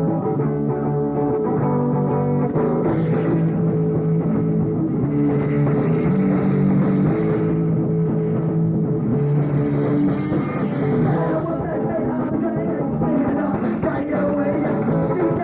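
Rock band playing a song live, with electric guitar.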